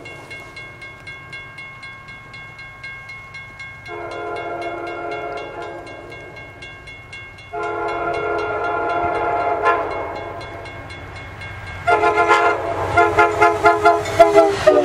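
Amtrak passenger train's horn sounding as the train approaches at speed: a long blast about four seconds in, a second long blast right after it, then louder, broken blasts from about twelve seconds as the train closes in. The low rumble of the train grows near the end as the cab car reaches the camera.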